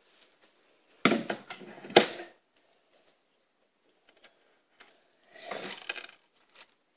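Plastic building-brick toy tank handled and knocked about on a wooden table: a short burst of clattering with a sharp click about two seconds in, and a second, weaker clatter near the end as loose pieces come off.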